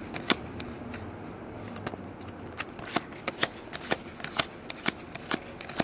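Stack of 2008 Upper Deck Heroes football trading cards being thumbed through card by card, giving irregular sharp snaps and flicks as each card is slid off the pile.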